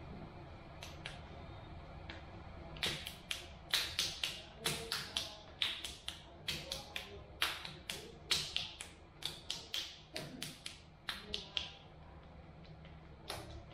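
Sharp slapping taps of hands striking a head in a percussive head massage, the fingers clapping together with each strike. Quick irregular strikes, about three a second, start about three seconds in and die away near the end.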